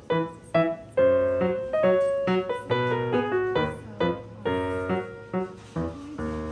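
Background piano music: a light melody of single notes, about three a second.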